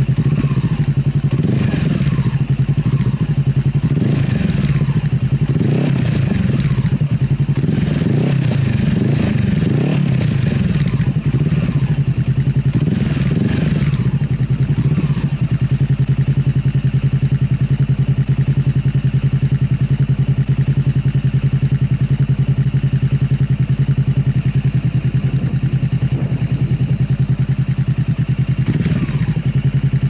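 Honda CB500F's parallel-twin engine breathing through a Mivv GP exhaust with the dB killer removed. It is revved in a series of quick throttle blips for about the first fifteen seconds, then idles steadily, with one more short blip near the end.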